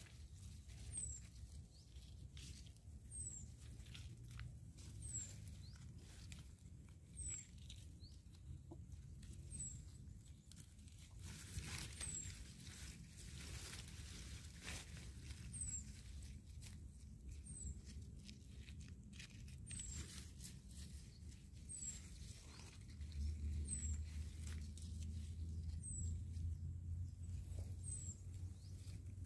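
Ground cherry plants' leaves and stems rustling as a hand reaches in to pick the husked fruits, with a short high chirp repeating about once a second. A low rumble comes in about two-thirds of the way through and is the loudest part.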